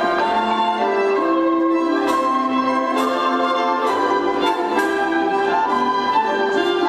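Instrumental Estonian folk dance tune, a bright melody over a steady beat of about two strokes a second.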